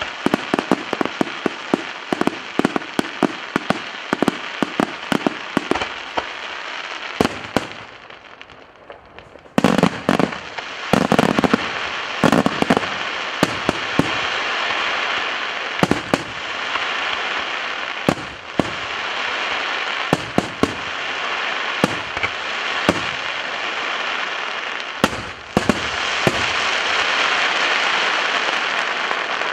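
Daytime fireworks display: a rapid string of sharp bangs, a short lull about eight seconds in, then loud bursts over a continuous dense crackle, with a single bang every second or two.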